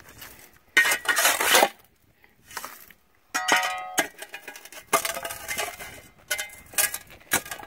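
Steel shovel digging into rocky, gravelly ground and tipping dirt and pebbles into the metal hopper of a hand-held Golden Retriever drywasher: repeated gritty scrapes with clinks of stones on metal, and one short metallic ring about halfway through.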